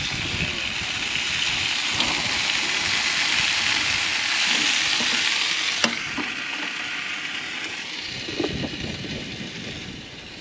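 Meat-and-vegetable kebabs sizzling on a gas barbecue's hot plate. About six seconds in comes a sharp click as the stainless hood is shut, and the sizzle then turns fainter.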